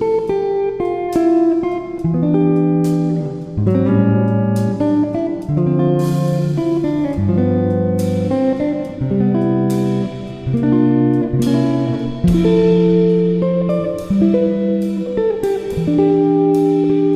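Background music played on guitar: plucked chords and notes in a steady, repeating progression.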